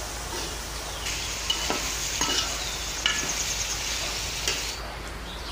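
Meat and fried onions sizzling in an aluminium pot while a perforated metal spoon stirs them, with several sharp clinks and scrapes of the spoon against the pot.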